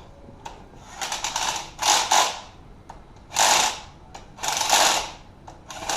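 Hand ratchet wrench clicking in about five separate strokes, each about half a second long.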